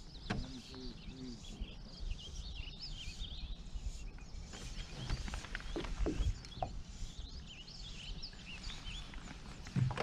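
Small birds chirping repeatedly in short high calls over a low rumbling background, with a few light knocks.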